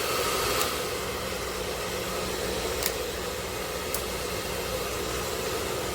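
A 2200 W AC-motor ionic hair dryer running steadily on its high speed setting, a constant rush of blowing air with a faint motor hum, and a few faint clicks as it is handled.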